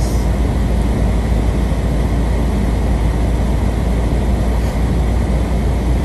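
Steady low rumble and hiss of a car driving slowly, about 40 to 50 km/h, on a snow-covered road, heard inside the cabin, with strong wind blowing outside.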